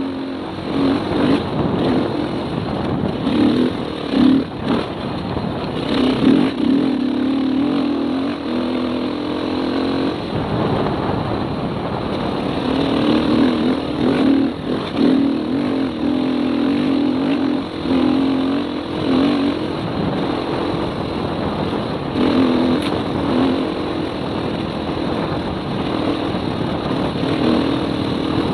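Dirt bike engine running hard at speed, its note repeatedly dropping away and coming back as the throttle is rolled off and on. Wind noise and knocks and rattles of the bike over the rough trail run through it.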